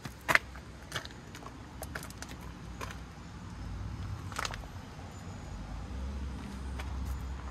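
Scattered short clicks and knocks, the sharpest about a third of a second in, over a low steady rumble that grows slightly stronger in the second half.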